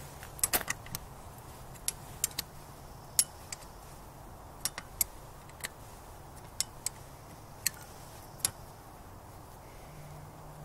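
Sharp metallic clicks at irregular intervals from a socket wrench being worked on a lower-unit bolt of a Johnson 9.5 HP outboard.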